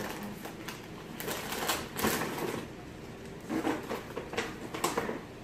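Irregular rustling, crinkling and clicking of gifts and their packaging being handled.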